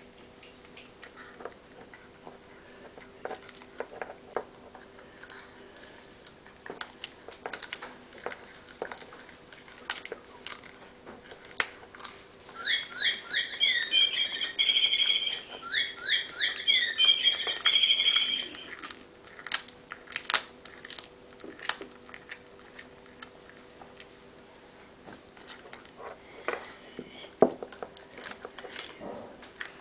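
Domestic cat gnawing and crunching raw meat on the bone, with sharp crunching clicks coming irregularly. Midway, a high chirping call warbles for about six seconds.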